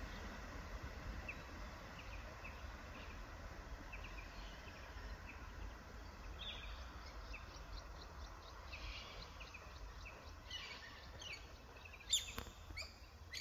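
Birds chirping with short repeated calls that grow busier in the second half, over a low steady rumble. A sharp, louder sound comes about twelve seconds in.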